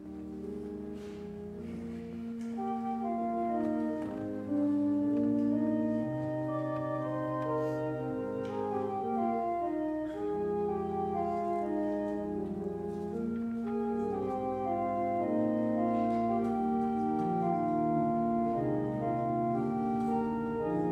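Church organ playing offertory music: slow chords of long-held notes over a sustained bass line. It starts right at the beginning and gets louder about four and a half seconds in.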